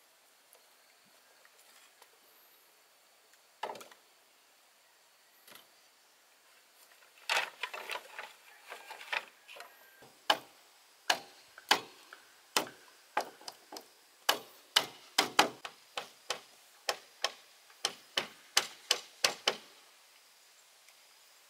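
Bamboo being struck with a hand tool: a couple of separate sharp wooden knocks, then a long run of repeated strikes that quickens to about two a second near the end.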